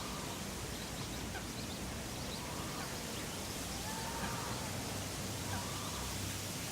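City park ambience: a steady low background rumble with faint bird calls and chirps over it, one longer arching call about halfway through.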